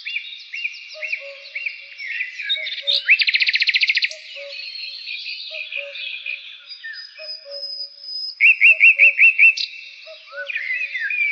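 Several birds singing and chirping together. A rapid trill comes about three seconds in and a run of six loud, quick chirps a little past eight seconds, over a steady background of calls and a soft low call repeating about twice a second.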